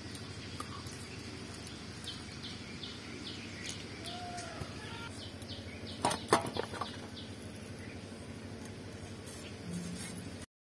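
Star fruit being sliced on a boti blade and the slices set into a steel bowl. There are light cutting clicks, then a cluster of sharp clinks and clatter about six seconds in, over a steady background hiss with faint chirps.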